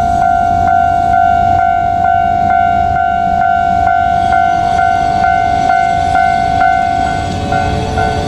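A Japanese railway level-crossing warning bell ringing in an even, steady rhythm of about two strikes a second, over a low rumble. This is the crossing alarm that sounds while the barriers are down for an approaching train. Near the end a second, lower tone joins in.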